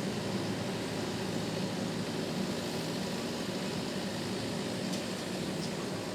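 Rice harvesting machine's engine running steadily, a constant mechanical hum with no change in pace.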